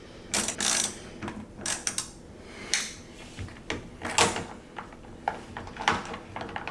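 Irregular metallic clicks and short scrapes of a hand tool working a door handle bolt inside a car door.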